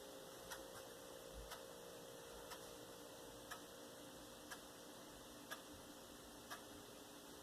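Near silence with a faint, sharp tick about once a second, evenly spaced like a clock, over a faint steady hum.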